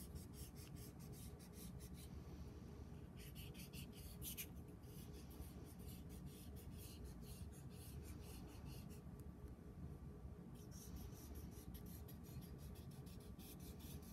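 Black felt-tip marker drawn over paper in quick zigzag strokes, a faint run of short scratchy strokes that pauses briefly twice.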